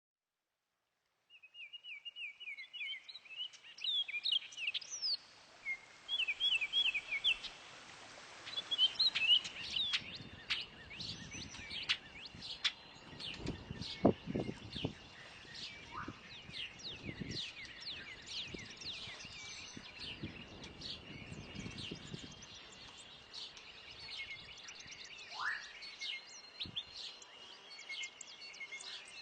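Orioles and other songbirds chirping and singing, with quick runs of repeated chirps and many short calls. A low rumble comes in through the middle.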